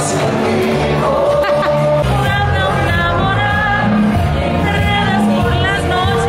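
Live music: a man singing into a headset microphone while playing a semi-hollow electric guitar, over steady low bass notes.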